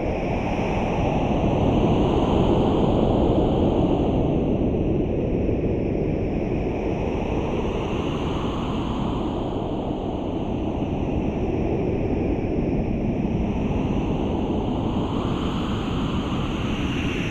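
Steady rushing wind sound, its tone slowly sweeping up and down every several seconds.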